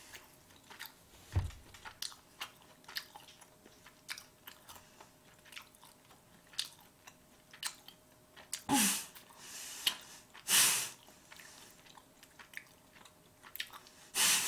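Close-up mouth sounds of someone chewing sushi: soft wet clicks and smacks all through, with a few louder short noisy bursts about nine seconds in, a second and a half later, and near the end.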